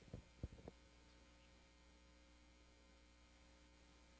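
Near silence: a steady, faint electrical hum in the room tone, with a few soft knocks in the first second.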